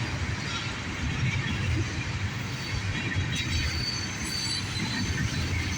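Tank cars of a CSX mixed freight train rolling past: a steady rumble of steel wheels on rail.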